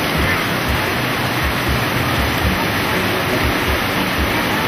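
Loud, steady rushing noise like heavy hiss that fills the sound, with a man's voice over a microphone heard only faintly and indistinctly beneath it.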